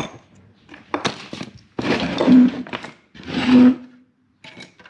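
Thuds and scraping from parts and tools being handled on a wooden workbench while wire connectors are fitted, with two louder stretches about two seconds in and again near three and a half seconds.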